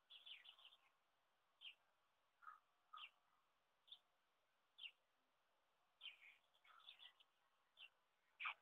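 Faint small-bird chirps: scattered single short calls, with a quick run of chirps at the start and another right at the end.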